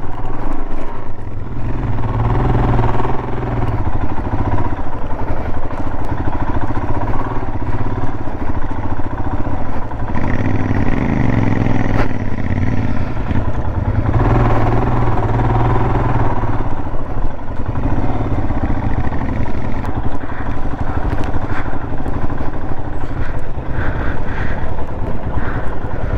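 Motorcycle engine running under load at low speed through soft sand, close to the microphone. The revs rise and fall as the throttle is worked, climbing notably about ten seconds in and again a few seconds later.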